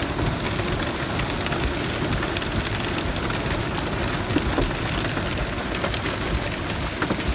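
Hail mixed with heavy rain pelting down on the car and the pavement, heard from inside the car: a dense, steady patter of countless small hits.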